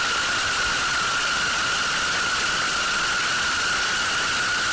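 Sorting-algorithm visualizer's audio running an Improved Bogo Sort at millions of array accesses, blurred into a loud, harsh, unchanging hiss with a steady high-pitched tone running through it.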